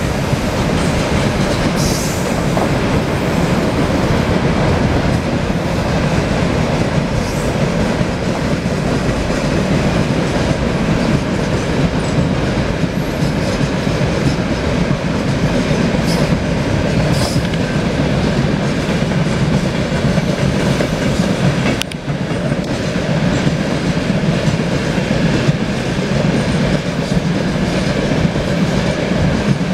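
Heavy freight train of open gondola wagons rolling past in a steady, loud rumble, with wheels clattering over the rail joints and a few short high metallic squeaks. The sound breaks off briefly about two-thirds of the way through, then the rumble of a passing freight train goes on.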